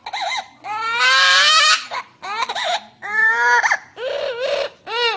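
Parrot mimicking a baby crying: a series of loud wailing cries, one long drawn-out wail about a second in followed by several shorter, wavering cries that rise and fall in pitch.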